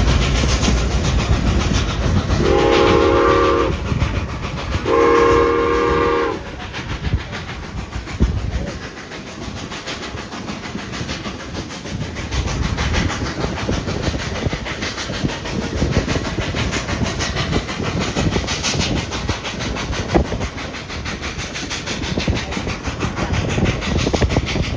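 Baldwin K-36 narrow-gauge steam locomotive No. 489 sounds two blasts on its steam whistle, one about 2.5 seconds in and a second about 5 seconds in. A steady rumble of the train running on the rails goes on underneath, heard from aboard the train.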